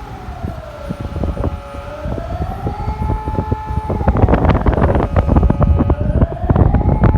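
Outdoor emergency alert siren sounding a slow wail during a test. Its pitch sinks and climbs again about every four seconds. From about four seconds in, a loud low rumble and crackling noise come in over it.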